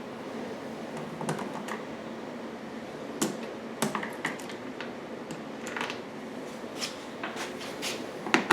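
Irregular small clicks and taps of a screwdriver backing out Phillips head screws and a generator side cover being handled, the sharpest click near the end.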